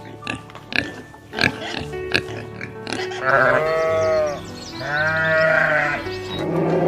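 A farm animal making short grunting sounds, then two long calls, each about a second, with a rise and fall in pitch, over background music.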